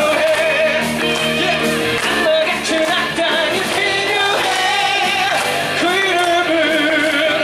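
Live musical-theatre song: a singer with band accompaniment, the voice holding notes with vibrato.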